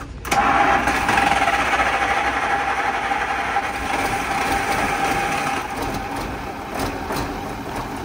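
Mercedes truck's diesel engine starting and running, with a steady whine over the engine noise that eases after about five seconds.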